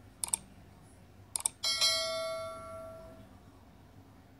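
Mouse-click and bell-ding sound effects. Two quick clicks come twice, then a bright bell ding rings and fades out over about a second and a half.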